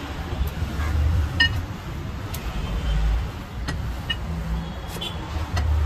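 Steady low rumble of road traffic, with a few sharp knocks and clinks scattered through it as a cleaver and pieces of goat head meet the wooden chopping block.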